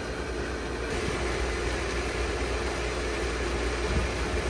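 Pool pump motor running steadily with water moving through the plumbing: a constant hum with a low rumble, the system primed and running at about 30 psi on the filter gauge.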